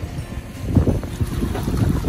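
Wind buffeting the microphone in uneven gusts as a low rumble, growing stronger about three-quarters of a second in.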